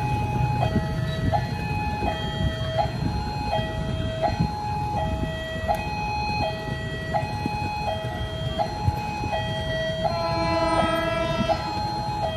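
Railway level-crossing warning alarm sounding, an electronic two-note signal switching between a higher and a lower tone about every three-quarters of a second, which warns that a train is approaching. Road traffic rumbles beneath it, and a passing vehicle is heard briefly about ten seconds in.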